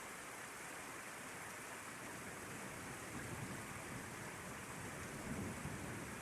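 Steady rain hiss, with a low rumble of distant thunder swelling from about halfway in and peaking near the end.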